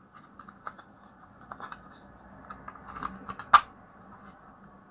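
Small plastic clicks and rubbing as the battery cover of a Skywatcher EQ2 RA motor drive unit is handled and fitted back onto its case, with one sharper, louder click about three and a half seconds in.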